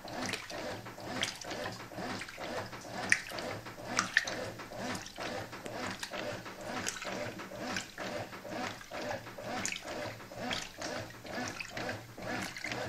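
Brastemp Clean 6 kg washing machine on normal agitation with a double duvet: the agitator churns the load back and forth and the water sloshes in an even rhythm over a low motor hum. Two sharp clicks come about three and four seconds in.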